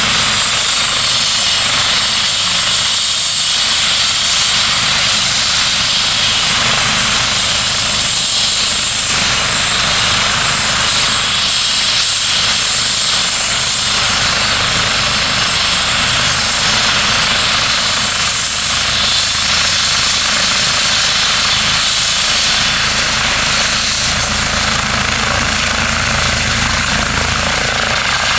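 Eurocopter EC135 air-ambulance helicopter running with rotors turning, its twin turbines giving a steady high whine over the rotor noise. The whine rises slightly in pitch in the last few seconds as power comes up and the helicopter lifts off into a hover.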